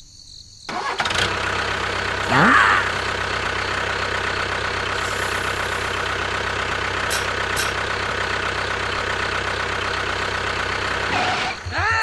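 Tractor engine idling steadily. It comes in suddenly about a second in, with a short rising sound about two seconds later.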